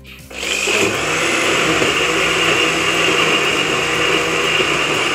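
Electric countertop blender starting up and running steadily, grinding yogurt, gram flour, spices and water into a smooth kadhi batter. It spins up to full speed within the first second.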